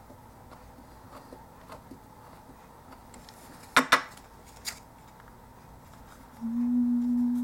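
Small plastic table-kit parts clicking as they are handled: two sharp clicks in quick succession about halfway through, then a lighter one. Near the end a steady low hum lasts a little over a second.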